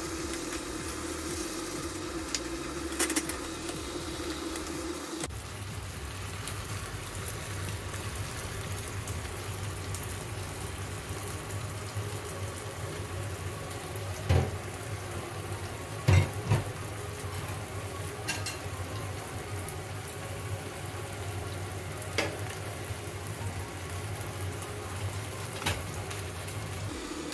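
Pork, cabbage and beaten egg frying in a frying pan: a steady sizzle, with a wooden spatula stirring the food in the first few seconds and a few sharp knocks, the loudest around the middle.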